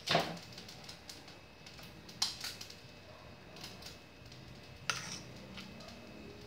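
Metal fork clinking against a metal pot while lifting pieces of chicken: three sharp clinks about two and a half seconds apart, with a few fainter taps between.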